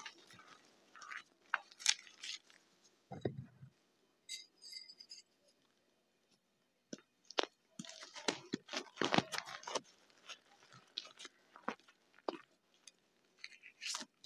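Pieces of gym chalk crushed and crumbled in the hands, a run of dry, irregular crunches. The crunches thin out to a short lull about halfway through, then come thick and fast again for a few seconds before trailing off into scattered crunches.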